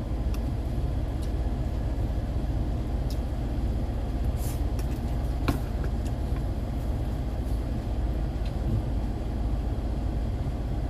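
A car driving along a road: a steady low rumble of engine and road noise, with a couple of light clicks in the middle.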